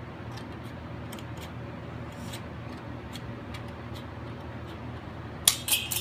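Aviation snips cutting sheet metal: a string of faint, irregular clicks as the blades close, over a steady low hum. About five and a half seconds in comes a loud, sharp clatter of sheet metal as the cut-off piece is tossed aside.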